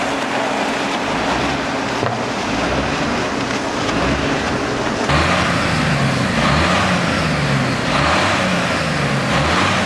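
Vehicle engines running under a steady loud rushing noise; from about five seconds in, an engine's pitch rises and falls over and over.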